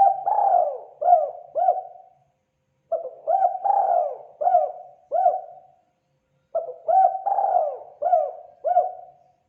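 Spotted dove cooing: three repeated phrases, each a quick run of about five coos lasting about two seconds, with pauses of about a second between them.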